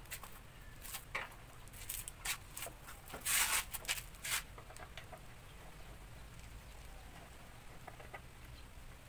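Screwdriver work on a motorcycle's plastic headlight cowl as it is unscrewed and loosened: scattered clicks and rattles over the first five seconds, loudest in a short clatter about three and a half seconds in, then only faint background.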